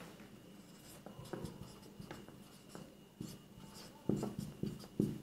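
Marker writing on a whiteboard: short, faint scratching strokes, with a few louder strokes near the end.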